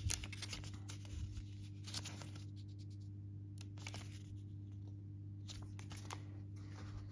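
Pages of a small paper instruction booklet being flipped through by hand: soft, irregular rustles and riffles of paper, over a steady low hum.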